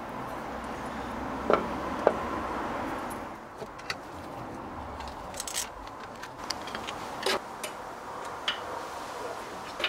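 Scattered metal clicks and clinks as a steel lathe faceplate is handled and screwed onto a wooden bowl blank with a screwdriver, about half a dozen sharp separate ones.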